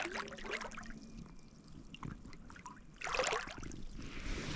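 Creek water trickling and running, with scattered small clicks and a louder rush of noise about three seconds in.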